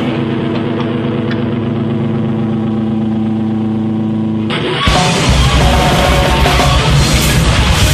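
Live improvised noise rock: a sustained, droning electric guitar tone holds steady with its overtones. About four and a half seconds in, the full band crashes in loud, with distorted electric guitars and pounding drums.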